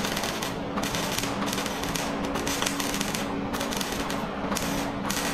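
MIG welder crackling as it welds a replacement rocker panel to the car body, in runs of about a second or more broken by short pauses between welds.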